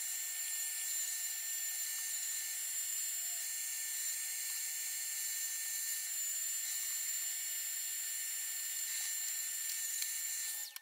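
Vacuum cleaner running steadily through a brush nozzle, a constant rushing noise with a high whine; it cuts off suddenly near the end.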